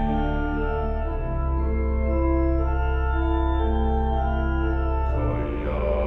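Background music carried by a sustained organ, held chords that change about a second in and again about five seconds in.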